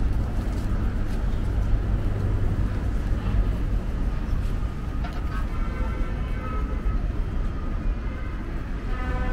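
City street ambience: a steady low rumble of road traffic. Over it, some higher held tones come in about halfway through.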